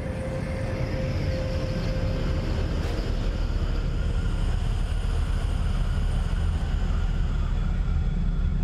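Low, steady rumbling drone on a film soundtrack, swelling slightly in the first second or two, with a thin high tone that fades out a few seconds in.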